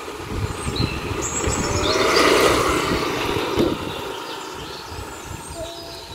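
Motor scooter engine passing close by, growing louder as it approaches and fading as it rides away.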